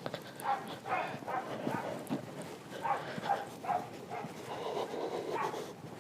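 Dogs barking repeatedly in short runs of barks.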